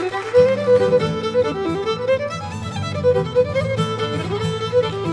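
Background music: an instrumental tune with a quick melody, joined by a lower accompaniment about half a second in.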